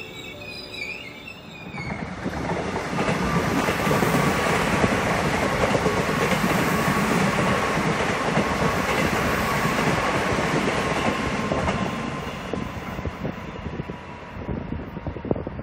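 A Korail Line 1 resistor-controlled electric commuter train running past, a loud steady rumble of wheels on rail with a thin whine that slowly falls in pitch. It fades after about twelve seconds into separate clicks of wheels over rail joints as it moves away.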